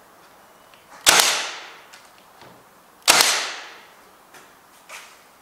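Milwaukee cordless brad nailer firing twice, about two seconds apart, driving brads into a plywood box: each shot a sharp bang with a short fading tail. A few faint light clicks follow near the end.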